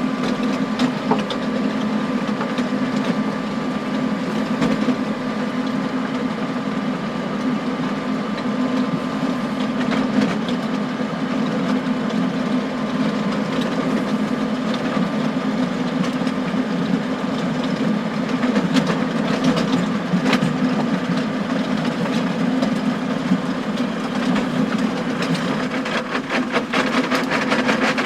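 John Deere tractor engine running steadily under load, driving a power harrow, with a steady whine over it. Scattered knocks and clacks of stones striking the harrow's tines, coming thicker near the end.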